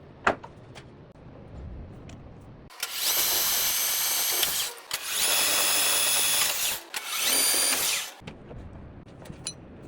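Electric power tool motor run three times in short bursts, each spinning up quickly to a steady whine and then stopping. A sharp click comes just before the first run.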